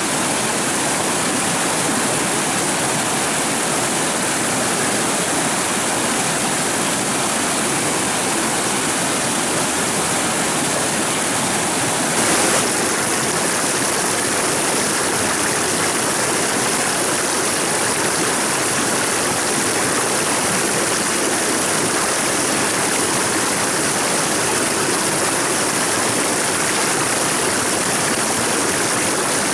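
Stream water flowing in a steady, continuous rush, with one brief louder moment about twelve seconds in.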